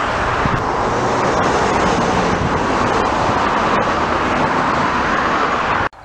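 Steady rushing noise of road traffic, continuous and loud, cutting off suddenly near the end.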